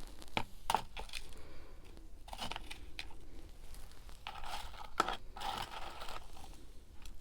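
Handling of freezer frost and its container: crinkly, crackling rustles with several sharp clicks, the loudest click about five seconds in.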